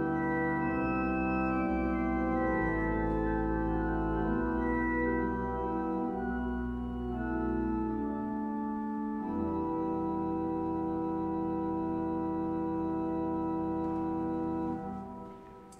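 Organ playing slow, sustained chords that change every second or two, then one long held chord that dies away near the end.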